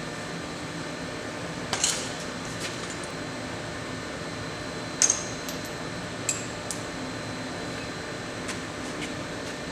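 A few light metallic clinks, spread apart, as steel roller-chain parts are handled, over a steady background hum.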